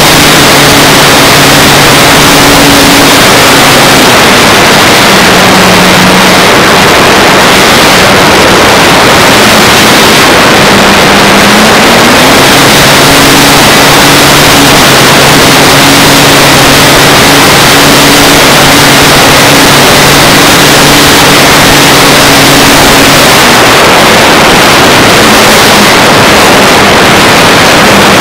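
Radio-controlled P-51 Mustang model's motor and propeller, a low hum under a loud, steady hiss. The hum drops in pitch about four seconds in, climbs back around twelve seconds and holds, then eases off again near the end as the throttle is worked.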